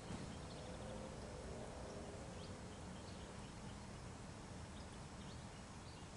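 Faint, steady outdoor background noise with a low rumble and a few scattered faint, short high chirps.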